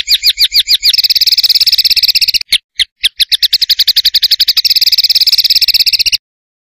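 Songbird singing a rapid-fire 'tembakan' phrase: a dense run of high notes repeated about a dozen times a second, with a brief break a little before halfway. It cuts off abruptly near the end.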